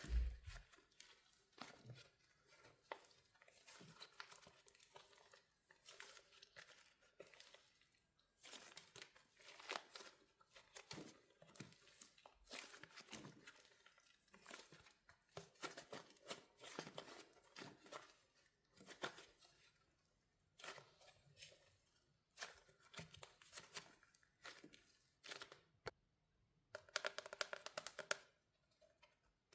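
Wax coating on a soft soap squishy cracking as it is squeezed: a run of faint, irregular crackles and small snaps, bunched more densely in a few spots, with a short low thump at the very start.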